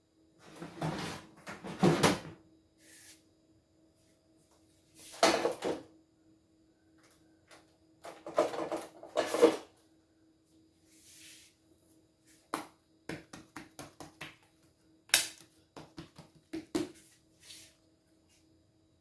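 Hands working dough on a sheet-covered table: irregular rustling and knocking bursts, then a run of quick sharp taps from about twelve seconds in, over a faint steady hum.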